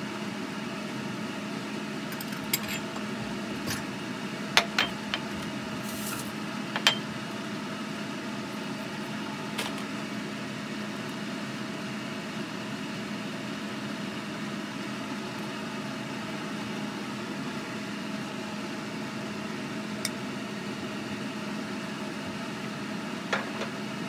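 Steady low hum of a kitchen fan or running appliance, with a few light clinks of dishes being handled, most of them in the first ten seconds.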